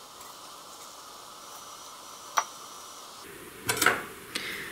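Faint steady hiss with one sharp click about two and a half seconds in, then near the end the clatter of a metal spoon being picked up from among the steel utensils, striking twice.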